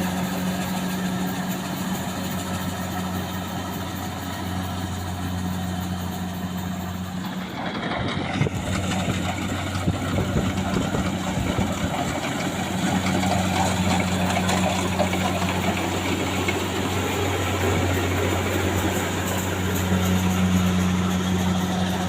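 Kubota DC-70 Plus combine harvester's diesel engine running steadily under the dense mechanical noise of the working harvester. About eight seconds in the steady engine note breaks up with a single sharp knock, and the note settles back about four seconds later.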